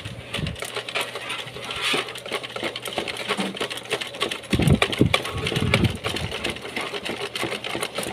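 Household Singer treadle sewing machine, turned by hand rather than by treadle or motor, stitching stretch dry-fit cotton with a fast, even clicking from the needle and hook mechanism. This is a test seam after the stitches were set finer.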